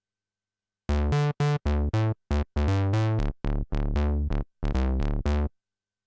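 Steinberg Prologue virtual-analog software synthesizer playing a bass preset: a rhythmic phrase of about eight short bass notes, starting about a second in and cutting off shortly before the end.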